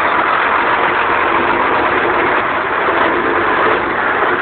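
Vehicle engine running with steady road noise, heard from inside the vehicle.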